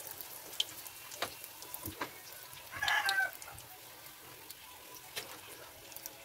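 Ube turon in spring roll wrappers frying in oil in a steel wok: a steady sizzle with a few sharp clicks of a metal spatula against the pan. About three seconds in, a short high call ending in a downward glide sounds once, louder than the frying.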